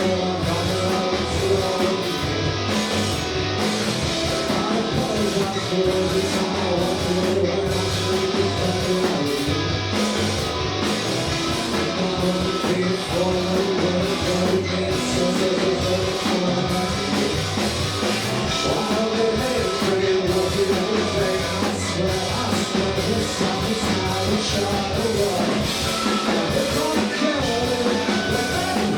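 Live indie rock band playing loud, with electric guitars, bass and drums and a sung vocal, heard through the room at a small club show.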